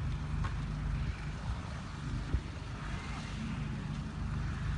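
A steady low engine-like hum under a hiss of outdoor noise, with one short thump a little past halfway.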